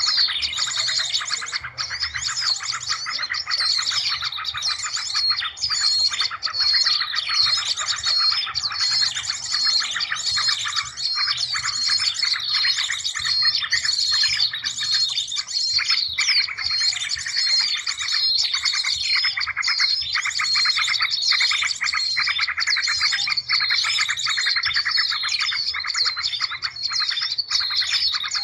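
Bird-lure recording of many small birds' calls layered together: a dense, unbroken chorus of rapid chirps and twitters, with one short call repeating over and over about twice a second. It is the kind of excited, alarm-like mixed chorus used to draw small birds in.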